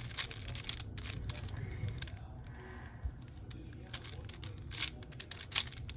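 Plastic 4x4 speed cube being turned by hand, its layers giving runs of quick clicks and clacks, with a quieter stretch in the middle.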